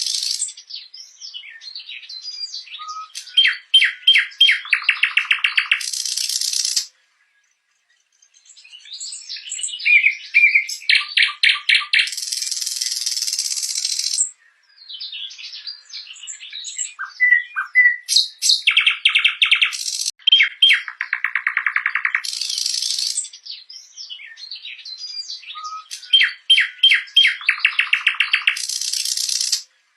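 Nightingale singing: phrases of rapid repeated notes, whistled notes and harsh buzzy trills, each phrase several seconds long, with short pauses between phrases.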